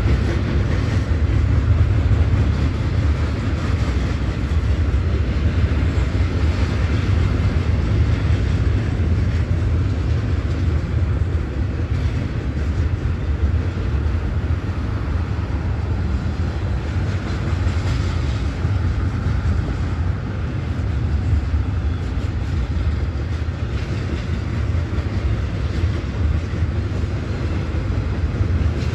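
BNSF double-stack container freight train passing: a steady rumble of steel wheels rolling on the rails, with no let-up.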